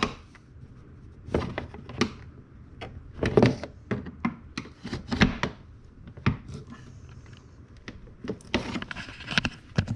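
Door trim panel being pried and pulled off its plastic retaining clips: a string of irregular knocks and thunks, about a dozen, with scraping and rubbing of plastic in between.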